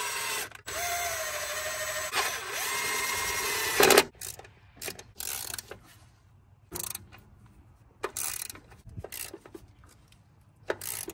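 Cordless Milwaukee impact driver run in three bursts, spinning the throttle-body bolts down, the last burst ending in a sharp loud hit as the bolt seats. After that, only scattered light clicks and knocks of hand work on the throttle body.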